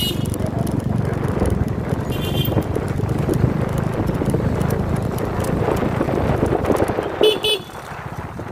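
Vehicle engine and road noise running steadily, with short horn beeps: one about two seconds in and a quick double beep near the end, after which the engine noise drops away.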